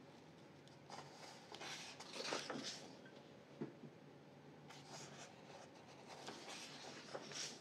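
Faint paper rustling as a page of a paperback colouring book is turned, about a second in, followed by a small tap and more soft rustling of hands smoothing the paper in the second half.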